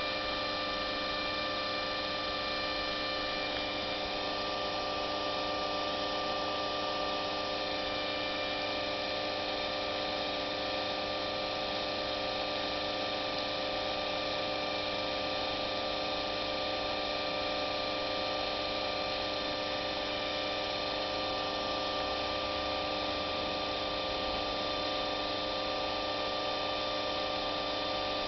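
Steady electrical hum with several fixed whining tones layered over it, unchanging throughout.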